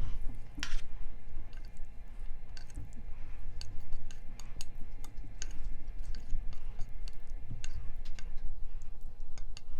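Close-miked chewing of spicy noodles, with irregular wet mouth clicks a few times a second over a steady low hum.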